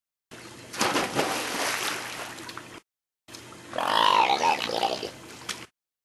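Splashing water as a person jumps into a swimming pool, with a sharp splash about a second in. After a short break of dead silence, a person gives a loud, wavering yell about four seconds in. Brief gaps of dead silence split the sound at each edit.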